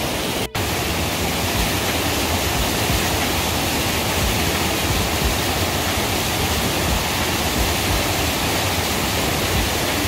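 Mountain stream running full, rushing and cascading over mossy boulders in small waterfalls: a loud, steady rush of water. It cuts out for an instant about half a second in.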